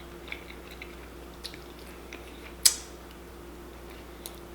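Close-up chewing and biting of fried chicken wings, with small wet smacks and clicks. One sharp crack about two and a half seconds in is the loudest sound.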